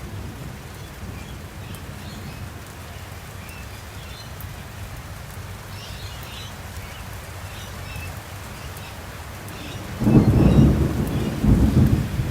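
Thunderstorm: steady rain falling with a low rumble underneath, then a sudden loud clap of thunder about ten seconds in that rolls on in heavy rumbles.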